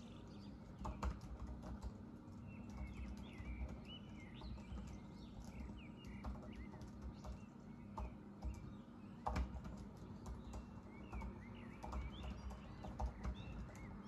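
Typing on a Mac laptop keyboard: irregular soft key clicks, with a louder tap about a second in and another near nine seconds. Small birds chirp in short, quick calls in the background.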